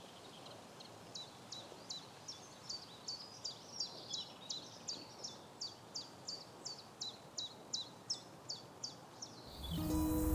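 A bird calling a long, even series of short, high, down-slurred notes, about two to three a second. Music comes in near the end.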